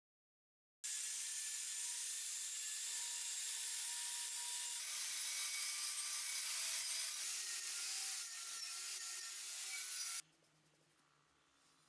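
Angle grinder with a wire cup brush scrubbing rust off a steel cleaver blade: a steady, harsh scratching hiss over the faint hum of the motor. It starts about a second in and cuts off suddenly near the end.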